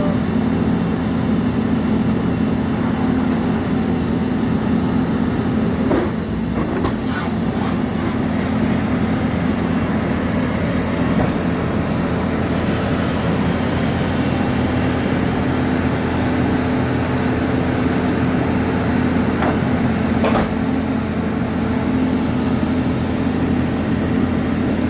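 Steady loud drone of aircraft and ground machinery on an airport apron, with a constant high-pitched whine on top. A few faint clicks come about six to seven seconds in and again near twenty seconds.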